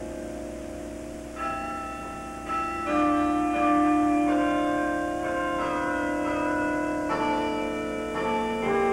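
Tower bells ringing a slow tune. Single struck notes come roughly one a second, and each rings on under the next.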